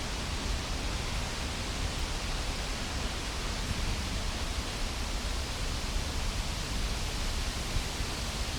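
Steady wind rushing through trees, with a low wind rumble on the microphone.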